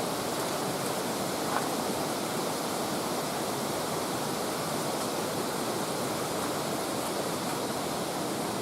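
Mountain stream rushing steadily, a constant even water noise.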